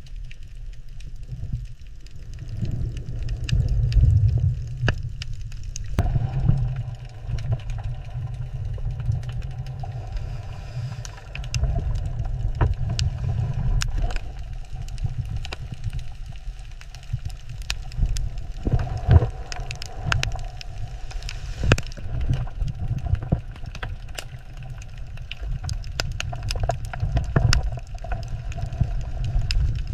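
A steady low rumble with frequent sharp crackles and clicks scattered through it, getting busier about six seconds in.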